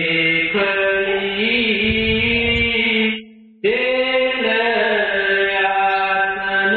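A devotional hymn (shabd) sung in a slow chanting style with long held notes, breaking off for a moment about three seconds in.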